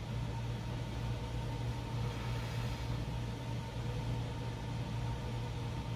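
Steady low hum of a room air-conditioning unit running, with faint higher tones above it.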